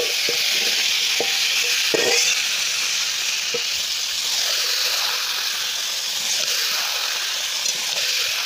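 Marinated chicken pieces sizzling steadily in hot mustard oil in a kadai, while a metal spatula stirs and turns them, clinking against the pan a few times in the first couple of seconds.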